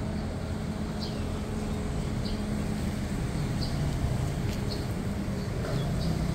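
Steady low rumble of street traffic, with a small bird giving short high chirps that dip in pitch every second or so.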